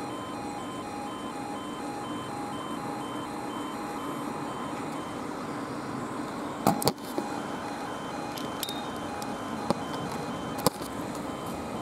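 Level crossing warning alarm sounding a steady pulsed tone, about two pulses a second, while a South Western Railway Class 450 electric train approaches. Sharp clicks come about two-thirds of the way through and again near the end, and the train noise builds at the very end.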